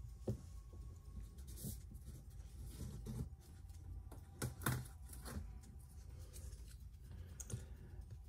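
Faint scattered clicks and rustles of board game pieces being handled, over a low steady room hum, with a brief cluster of louder clicks about halfway through.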